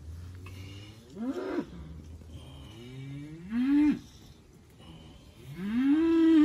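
A calf bawls three times while its lanced abscess is pressed, each call rising in pitch, the last one the longest and loudest.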